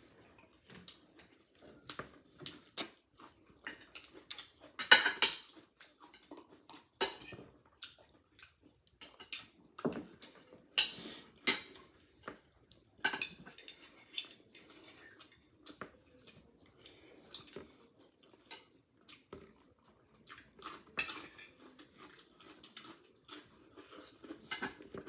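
Close-up eating sounds: plastic chopsticks clicking and clinking against clam shells and a glass bowl, in irregular taps with a few louder clusters of clatter, along with chewing.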